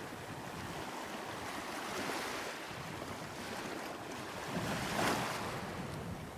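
Small sea waves breaking and washing up on a sandy shore and around rocks at the water's edge, with a louder wash about five seconds in.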